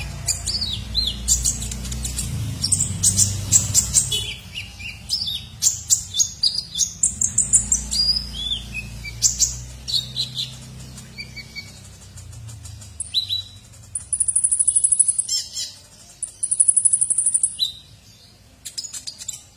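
Caged male Van Hasselt's sunbird singing hard: a rapid run of thin, high chirps and short twittering trills. Past the middle come two longer, very high buzzing trills, about a second each.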